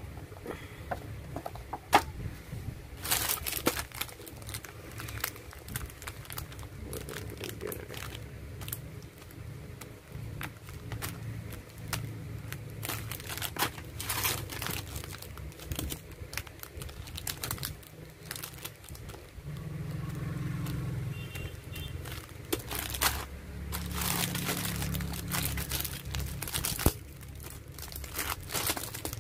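Clear plastic packaging bags crinkling and crackling in irregular bursts as hands handle packs of miniature dolls, over a low steady hum.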